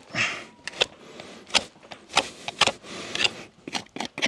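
Hoof pick scraping out a horse's very dry, hard hoof: a run of short, sharp scrapes at irregular intervals as packed dirt and stones are dug from the sole and white line.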